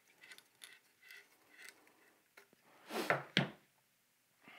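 Faint handling rustles and clicks, then two sharp knocks in quick succession about three seconds in as a five-socket light head fitted with compact fluorescent bulbs bumps down on the table, a knock that nearly broke the bulbs.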